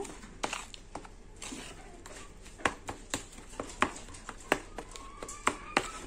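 Metal spoon stirring a wet slaked-lime paste in a bowl, giving scattered irregular clicks and knocks against the bowl.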